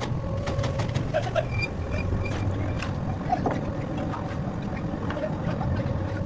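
Heavy machinery running with a steady low rumble and a held tone, broken by scattered clicks and knocks, and a few short high tones about two seconds in.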